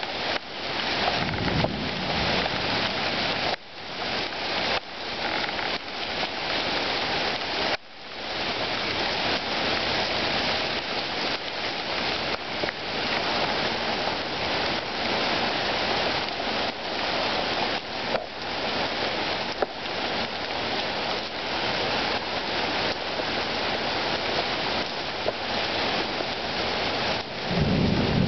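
Heavy thunderstorm downpour, a dense steady hiss of rain. There is a short low rumble of thunder about a second and a half in, and a stronger rumble of thunder begins near the end.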